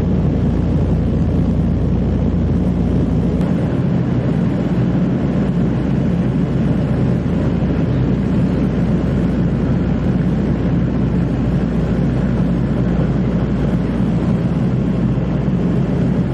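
Steady drone of a Catalina flying boat's twin radial engines, heard on board, with a slight change in the low hum about three and a half seconds in.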